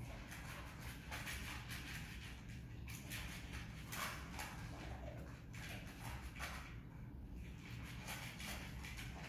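A dog eating from a bowl, then moving about on a couch cushion: irregular short crunching and clicking sounds over a steady low hum.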